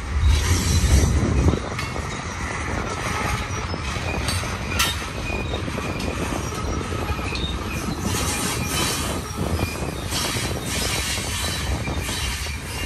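Union Pacific mixed freight train's cars rolling past close by: a steady rumble of steel wheels on rail, loudest in the first second or so, with occasional sharp clicks and short, faint high-pitched wheel squeals.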